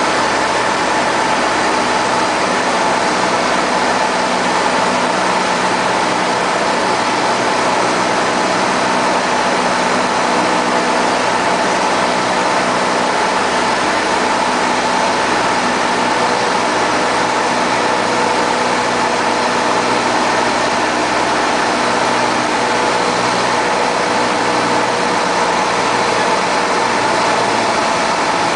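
Cessna 172's piston engine and propeller running, a steady drone heard inside the cockpit.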